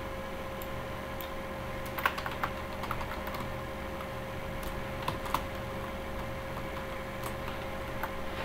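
Computer keyboard typing: short runs of keystroke clicks, bunched about two seconds in and again around five seconds, over a steady background hum.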